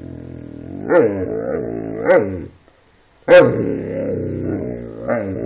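Great Dane vocalising in protest: two long, growly moaning cries, each broken by a few sharp rising-and-falling yelps, with a short pause between them. It is a dog's complaint at being made to rest after a meal instead of playing.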